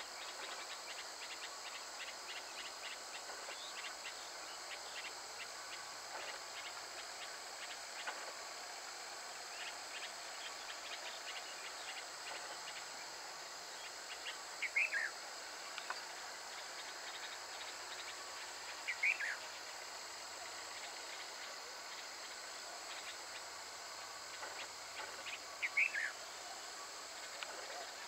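Steady, high-pitched insect chirring. A bird gives three short falling chirps, spread several seconds apart, the last near the end.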